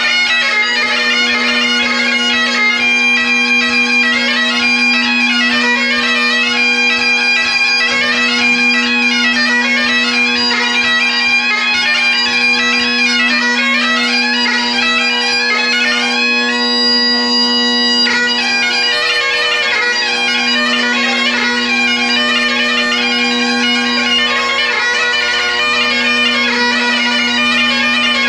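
Great Highland bagpipe played solo: the drones sound steadily under a chanter melody full of rapid grace-note ornaments, with one long held note about two-thirds of the way through.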